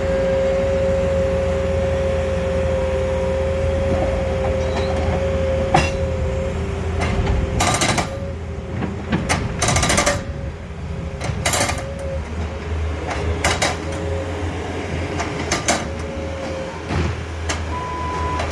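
Bobcat skid-steer engine running steadily with a whine, and from about halfway through, five or six short bursts of jackhammering on sidewalk concrete, each under a second.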